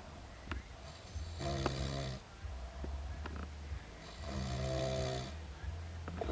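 A man snoring in drunken sleep: two long, buzzing snores about three seconds apart, with short sharp hiccups breaking in between and during them.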